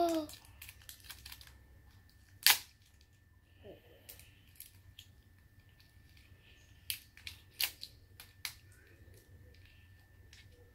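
Fingers picking and peeling at the plastic wrapping of an LOL Surprise Confetti Pop ball: scattered sharp clicks and crinkles. The loudest click comes about two and a half seconds in, with a handful more around seven to eight seconds in.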